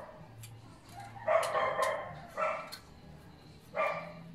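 A dog barking three times, each bark short, with pauses between.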